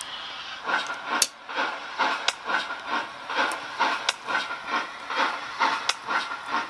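Digital steam locomotive sound from a model railway sound decoder: a steady hiss, then chuffing starts under a second in at about two to three chuffs a second as the OO gauge tank engine moves off, with a sharp click every second or so.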